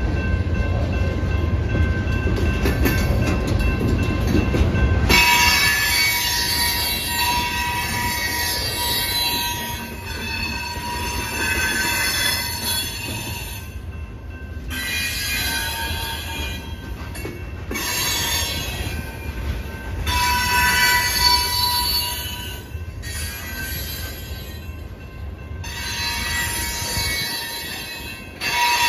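Loaded rock hopper cars of a freight train rolling past, with a low rumble of wheels on rail that is heaviest for the first five seconds. After that, high-pitched wheel squeal comes and goes in stretches of a few seconds.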